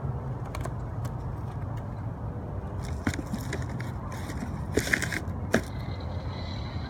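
Rustling and crackling as paperback books are picked up and handled, with a few sharp crackles between about three and six seconds in, over a steady low rumble.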